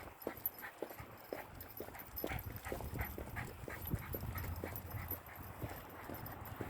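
Footsteps tapping on pavement in a quick, even rhythm, about three steps a second, over a low rumble.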